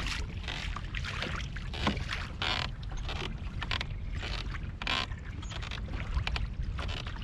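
Water slapping and splashing against the hull of a 2019 Hobie Outback kayak in short bursts, about one every half second to a second, over a steady low wind rumble on the microphone.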